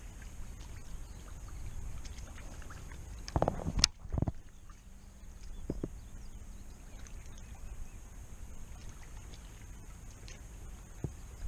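A cast with a baitcasting rod and reel: a short whoosh and a sharp click about three and a half seconds in, then a dull thump, over a low steady rumble.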